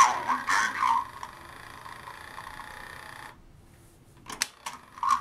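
The talking voice unit of a vintage G.I. Joe Troubleshooter toy, run off a battery while it is being repaired, plays back its recorded voice over the hum of its small motor. About three seconds in it cuts off suddenly. A couple of sharp clicks follow, and the voice starts again near the end.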